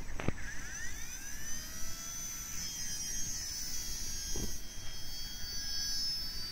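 WLtoys V977 RC helicopter's electric motor and rotor whining, rising in pitch in the first second or two, then holding a steady high whine in flight. A sharp knock comes just after the start, and a smaller one about two-thirds of the way through.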